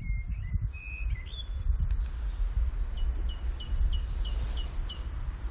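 A songbird singing: a few clear whistled notes, then a quick series of about seven two-note phrases, alternating high and low, over a continuous low rumble.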